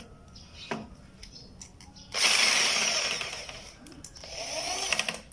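Corded electric drill driving a self-drilling screw through an A-hinge's track into an aluminium window frame. A loud run of about a second and a half begins about two seconds in and dies down, and a shorter, quieter run follows near the end.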